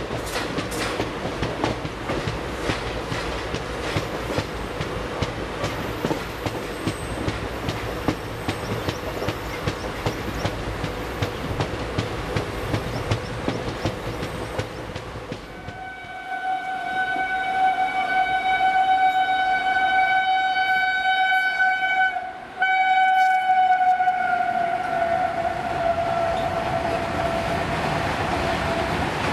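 Passenger train running at speed, wheels clicking over rail joints with a steady rumble. About halfway through, a loud electric-locomotive horn from the passing WAG7-hauled freight train sounds for about twelve seconds, with a short break in it, and its pitch drops near the end as the freight goes by.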